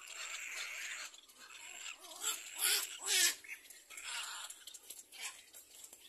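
Little black cormorant chicks crying in the nest, begging to be fed: rough, raspy calls in repeated bursts, the loudest run of them just before halfway.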